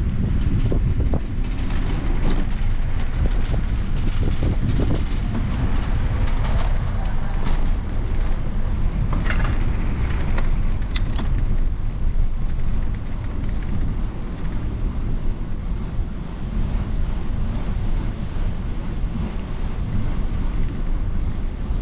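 Steady wind rumble on the microphone of a camera carried while cycling, with faint street noise beneath it.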